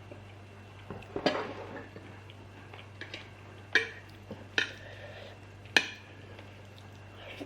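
Cutlery clinking and scraping against a dish several times, with sharp ringing clinks about a second in and again between four and six seconds. A low steady hum runs underneath.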